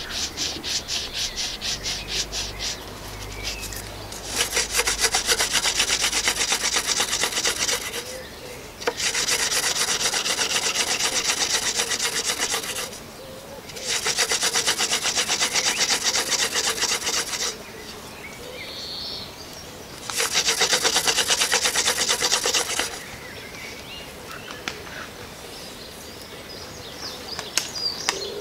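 Wooden hand-drill spindle spun back and forth between the palms in a hearth-board notch, wood rubbing hard on wood. It comes in five spells of a few seconds each, with short pauses between them.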